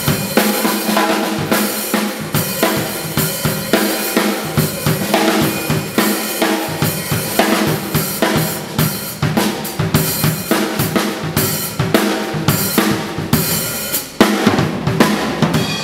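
Acoustic drum kit played in a steady groove: bass drum, snare, hi-hat and cymbals. The playing drops out briefly about fourteen seconds in, then comes back with a loud crash.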